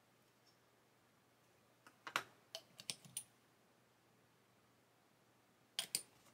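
Small sharp clicks and taps of small plastic kit parts and modelling tools being handled at a workbench: a quick cluster of five or six clicks about two seconds in, then two clicks near the end as metal tweezers are set down on the cutting mat.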